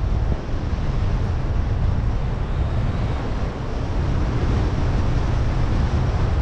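Airflow buffeting the camera microphone of a paraglider in flight: a steady rushing wind noise, heaviest in the low end.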